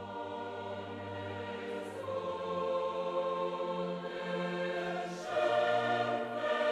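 Background music of slow, sustained choir-like chords, changing about two seconds in and swelling louder about five seconds in.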